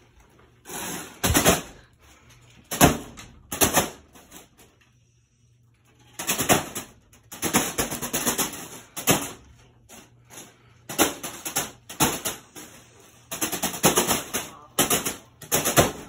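A foil balloon being struck again and again by the blades of a spinning ceiling fan: loud, sharp slapping and crinkling hits in quick clusters, with a short pause about a third of the way in. The balloon takes the beating without popping.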